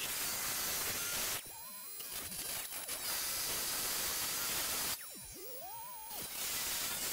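Oscillating multi-tool blade cutting a notch into an aluminium extrusion profile: a steady rasping noise that breaks off twice, about a second and a half in and about five seconds in.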